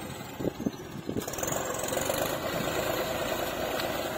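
Tractor engine running steadily, with a few short knocks about half a second in.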